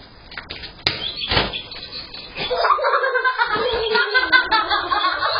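A sharp click and then a dull thump about a second in, followed by a child's wordless vocal noises that waver in pitch, through a security camera's narrow-band microphone.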